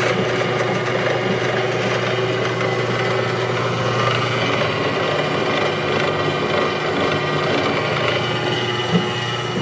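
JET 15-inch floor drill press running steadily, its motor and belt drive giving an even hum with a higher whine over it, with one small knock near the end.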